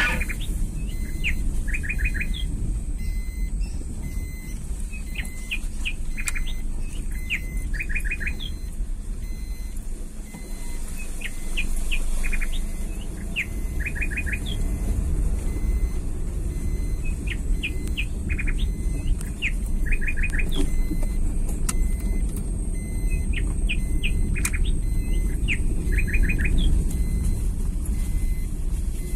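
Birds chirping: repeated quick bursts of about four short high notes, with single chirps in between, over the steady low rumble of a vehicle driving.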